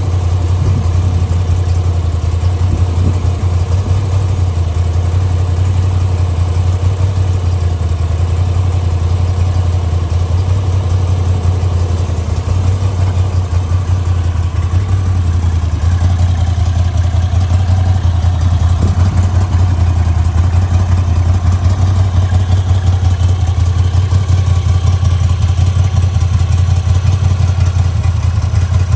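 Moto Guzzi V85 TT's 853 cc air-cooled, transverse 90° V-twin engine idling steadily, with a strong, even low note.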